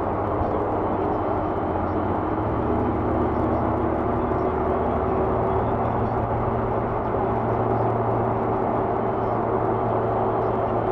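Steady road noise inside a car cruising at highway speed, picked up by a dash cam: an even rush of tyre and wind noise over a low steady hum.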